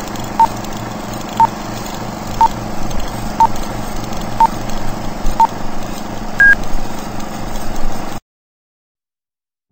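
Old-film countdown leader sound effect: a noisy, humming film-projector bed with a short beep once a second, six beeps, then one higher-pitched beep about six and a half seconds in. The sound cuts off suddenly about eight seconds in.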